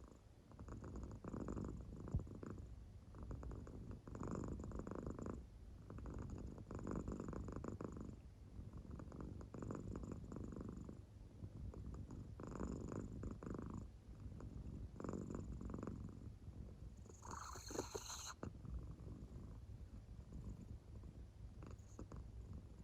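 Sleeping American Shorthair cat purring in deep sleep, a soft rumbling burst with each breath about every two and a half to three seconds. About seventeen seconds in comes one brief, sharper, higher sound.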